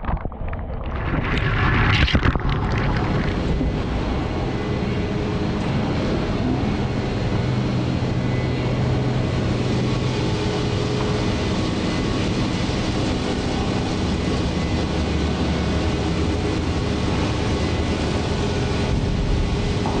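A short rising whoosh about a second in, then a steady rumbling hiss of machinery noise.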